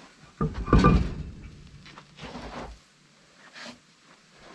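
Inside dual wheel of a truck, a steel rim with its tyre, being pulled off the hub studs and rolled out. A heavy scraping thud starts about half a second in and lasts about two seconds, followed by a couple of fainter scuffs and knocks.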